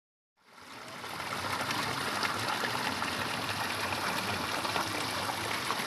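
Water rushing steadily, as at a stream or small dam, fading in over the first half second.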